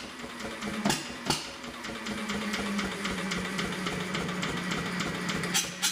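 1930s Onan single-cylinder diesel generator set being cranked over on a cold first start, with a steady hum and fast light ticking. Two sharp knocks come about a second in, and loud regular knocks at about three a second start again near the end.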